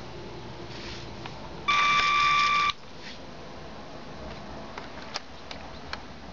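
A single steady electronic beep about a second long, followed later by a few faint clicks.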